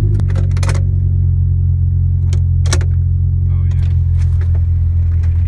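Car driving on the road, heard from inside the cabin: a steady low engine and road drone that shifts slightly just after the start, with a few short sharp clicks over it.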